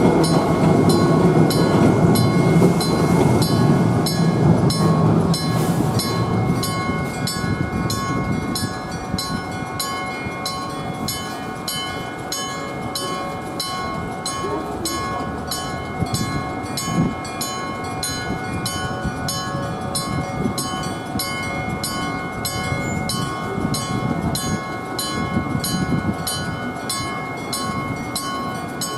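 A level crossing's warning sounds: an old electric crossing bell strikes in a fast, steady rhythm, together with a modern electronic crossing alarm's steady tones. A Randen (Keifuku) train rumbles through the crossing, loudest over the first several seconds and then easing off.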